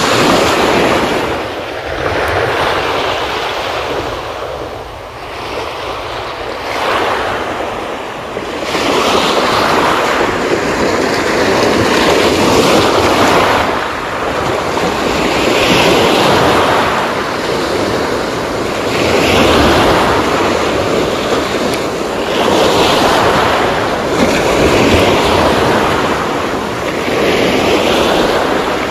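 Small sea waves breaking and washing up a pebble shore, the surf swelling and fading about every three to four seconds.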